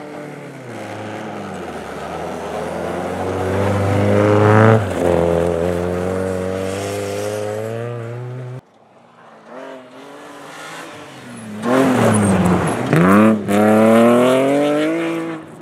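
Rally car engine revving hard as it pulls away on a snowy gravel road, pitch climbing, dropping at a gear change, then holding. After a sudden cut, a second rally car comes in louder at speed, its engine note dipping and shooting back up twice as the driver lifts and gets back on the throttle through the bend, then running at high revs before fading.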